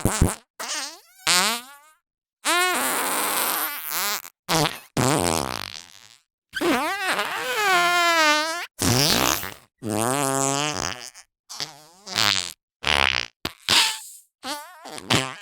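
A quick run of separate fart sound effects made by squeezing squishy fart putty, about a dozen in a row with short silences between. Some are raspy and airy, others are pitched with a wobbling pitch, and each lasts from a fraction of a second to about two seconds.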